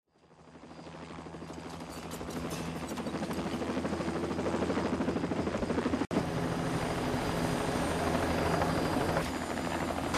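Helicopter running on the pad with a steady, rhythmic rotor chop. It fades in over the first few seconds and cuts out briefly about six seconds in.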